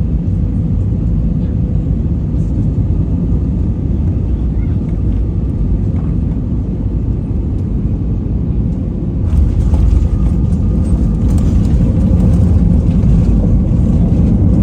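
Jet airliner cabin noise during landing: a steady low rumble that grows louder and hissier about nine seconds in, as the aircraft touches down and slows on the runway.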